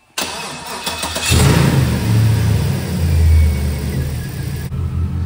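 A 2006 Chevy Silverado's 5.3L V8 is cranked by the starter and catches about a second in. Its revs flare up, then settle into a steady idle.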